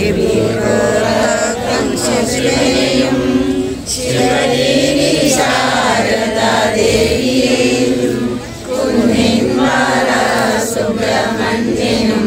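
A group of devotees chanting a prayer together in several voices, in long sung phrases with short breaths between them, about 4 and 8.5 seconds in.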